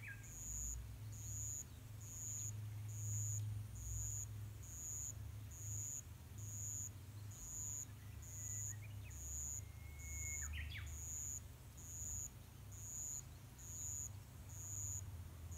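Eurasian tree sparrows giving a few short chirps, one at the start and a cluster around the middle. Under them runs a steady high-pitched pulsing tone, repeating slightly faster than once a second, and a low outdoor rumble.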